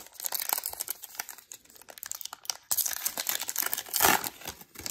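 Plastic wrapper of a Topps Gypsy Queen baseball card pack crinkling as it is torn open by hand along its crimped seam. The loudest rip comes about four seconds in.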